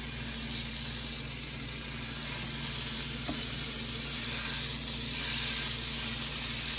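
Raw ground chorizo sizzling steadily in a hot skillet as pieces are pressed into the pan by hand.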